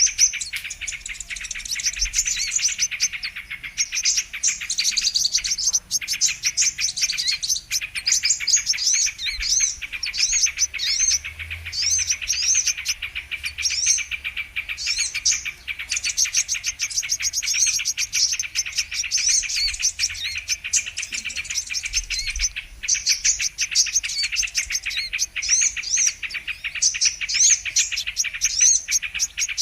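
Brown-throated sunbird (kolibri kelapa) song as a lure recording: a dense, unbroken run of fast, high-pitched chirps and twittering trills.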